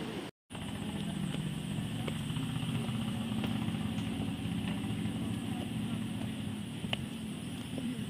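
Steady low rumble with a few faint clicks of footsteps on stone trail steps.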